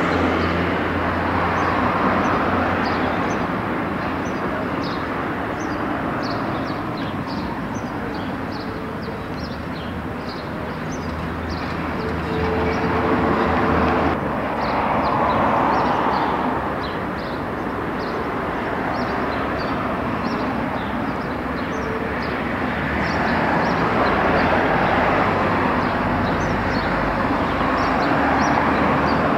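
Street traffic: cars passing one after another, the noise swelling and fading several times, with small birds chirping over it.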